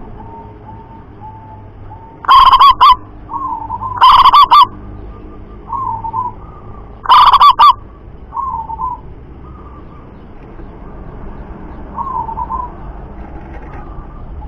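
Zebra doves (local perkutut) cooing in repeated phrases. Three very loud close calls come about two, four and seven seconds in, with softer coos between them.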